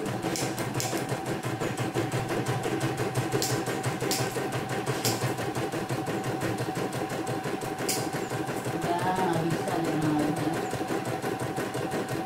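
Portable computerized embroidery machine stitching a design in its hoop: a rapid, steady needle rhythm with a few sharper clicks as the hoop carriage steps.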